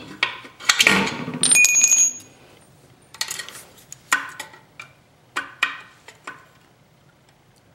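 Steel socket and extension clattering as they are pulled out of an aluminium swingarm pivot, with a brief metallic ring about a second and a half in. Then a few light clicks and taps as a digital caliper and feeler are set against the bore to check the freshly driven needle bearing's depth.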